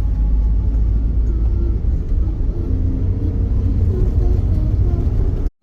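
Steady low road rumble of a moving vehicle, heard from inside while driving.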